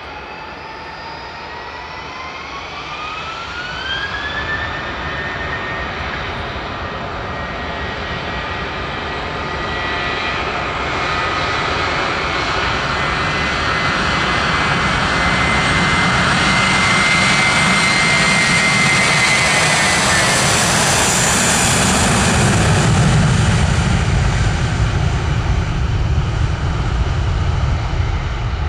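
Airbus A321-231 with twin IAE V2500 turbofans spooling up to takeoff thrust with a rising whine. The jet then accelerates down the runway on its takeoff roll with a steady high whine and a deep rumble that keeps building, loudest late on as it passes.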